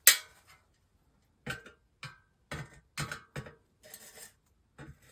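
A sharp metallic click, then a scattering of light clicks and clinks: a tool and loose parts being handled against the monitor's sheet-steel chassis and circuit board while it is taken apart.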